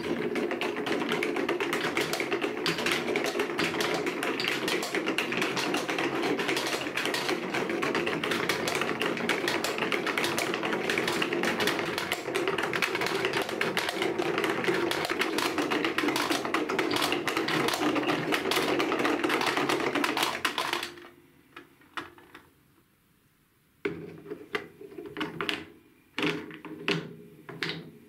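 Many balls rolling and clattering down a plastic wave-shaped marble run track, a dense continuous rattle of clicks that stops about 21 seconds in. After a short pause come scattered clicks and knocks as balls are set by hand into a curved track piece and tap against one another.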